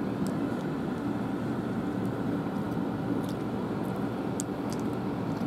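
Steady room hum and hiss, with a few faint sharp ticks scattered through it.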